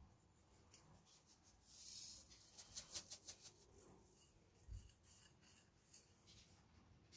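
Faint sounds of dry seasonings being shaken from spice jars into a ceramic bowl: a short hiss about two seconds in, then a quick run of taps and rattles. Near the end, fingers rub through the dry flour-and-spice mix.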